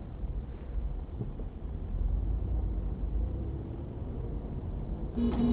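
Steady low rumble of engine and road noise inside a moving car, then a car horn starts blaring as one steady held tone right at the end.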